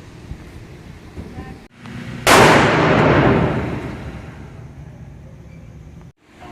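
A single gunshot about two seconds in, starting sharply and then fading away over a couple of seconds.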